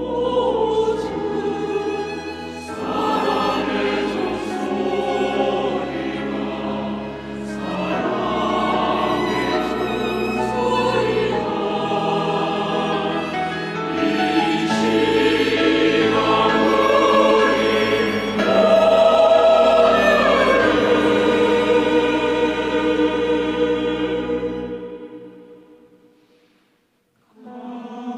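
Church choir singing a hymn anthem over steady low sustained notes. The singing grows fullest about two-thirds of the way through, then fades out about 25 seconds in, leaving a brief silence before sound starts again just before the end.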